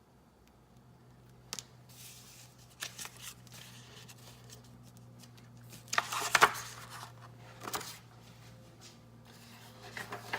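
Rustling, scraping and light knocks of small objects being handled, with a louder cluster about six seconds in, over a faint steady hum.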